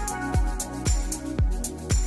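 Background music with a steady kick-drum beat, about two beats a second, and high ticks between the beats over held chords.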